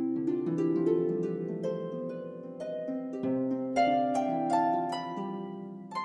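Background music: a plucked string instrument playing a gentle melody of ringing notes that overlap as they fade.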